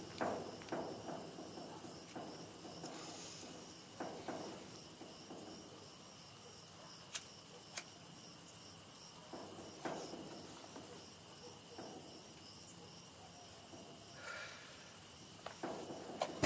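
Crickets chirping steadily in a faint night background, with a few soft rustles and a couple of faint clicks about seven seconds in.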